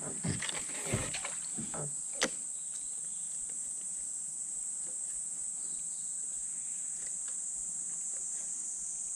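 Insects calling in a steady, high, even drone, with a few sharp clicks and knocks in the first couple of seconds.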